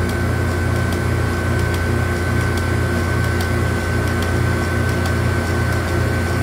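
Frozen-beverage (Slurpee) dispenser running with a barrel on freeze, its refrigeration and beater motor giving a steady low machine hum with a thin, steady high whine over it.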